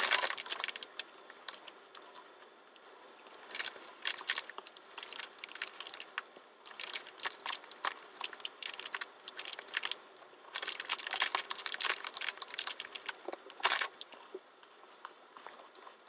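Chocolate biscuits being chewed: crisp crunching in several bursts of a second or more, with brief pauses between them.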